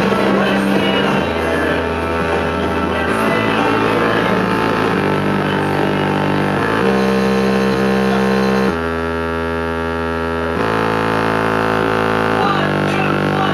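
Loud dance music with held, droning chords over a bass line, the chord changing about every two seconds; around nine seconds in the bass drops out and the sound thins and quietens for a couple of seconds before the fuller chords return.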